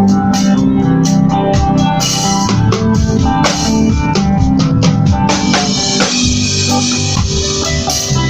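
Reggae band music: electronic organ chords held over a drum kit keeping a steady beat.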